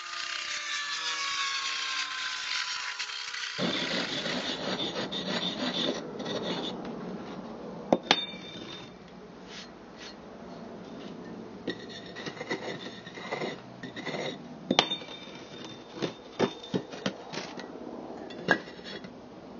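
Steel pipe scraping and rubbing soft firebrick as a channel is carved out of it, with a few sharp knocks, several of them near the end.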